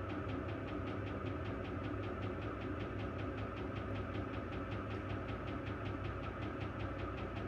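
Electrolux Ecologic 12 kg washing machine running: a steady motor hum with a fast, even pulsing of several beats a second.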